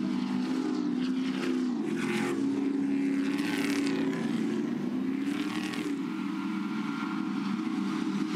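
Several Stadium Super Trucks' V8 engines running at a steady, moderate pace under caution behind the safety car. The trucks sweep past a trackside microphone a few times.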